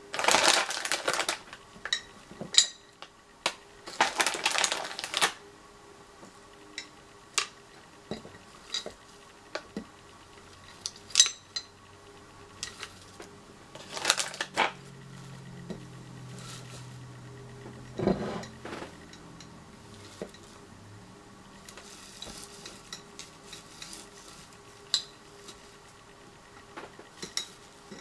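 Hard-shelled bubblegum eggs dropping and clinking against a glass jar, in scattered irregular clicks. A few bursts of plastic rustling come at the start and about four seconds in.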